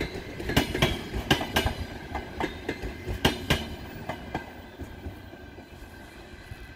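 Wheels of a double-deck passenger train's coaches clicking over rail joints, mostly in pairs, over a steady rumble. About four seconds in, the clicks stop and the rumble fades as the train moves away.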